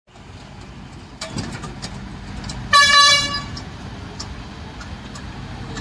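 A horn sounds once, a single high blast of about half a second, over a low rumble of road traffic.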